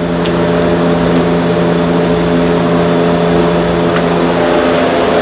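A steady machine hum holding one even pitch, unchanged throughout.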